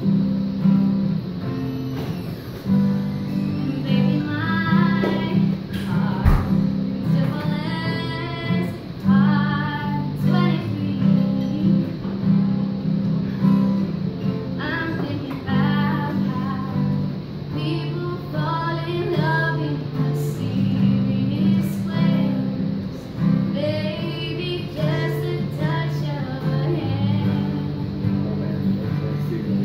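Live acoustic guitar strummed steadily, accompanying voices singing a slow love song.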